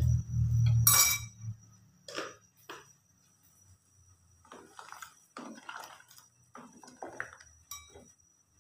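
Music stops about a second and a half in; then a sharp clink, followed by a wooden spatula stirring in an aluminium pressure cooker of broth, with short scrapes and knocks against the pot. A faint steady high whine sits underneath.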